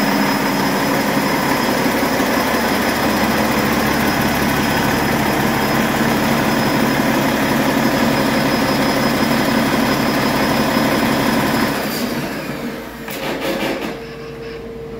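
Cummins X15 inline-six 15-litre diesel engine running steadily on a test stand, sounding healthy. The sound drops away sharply about twelve seconds in.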